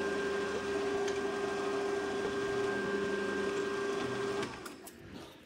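Manual metal lathe running, its chuck spinning with a steady whine while a twist drill in the tailstock drills through the workpiece. The lathe stops about four and a half seconds in and the sound dies away.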